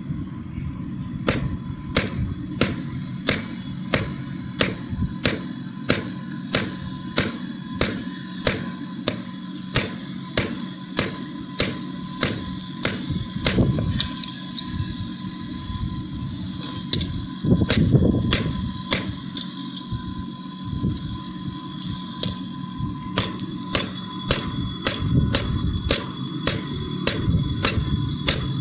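Hand hammer striking steel on an anvil in a steady rhythm of about two ringing blows a second, pausing for a few seconds midway before resuming. A steady low hum runs underneath.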